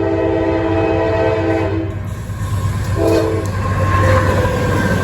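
CSX 5117's air horn sounding a chord of several notes in one long blast that stops about two seconds in, then a short blast about three seconds in, over the steady low rumble of the diesel locomotives passing.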